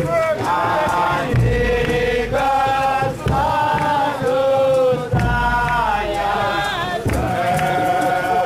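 Bobo Shanti Rastafarian marchers chanting together in unison, holding long notes that slide from pitch to pitch. Low thumps sound underneath every couple of seconds.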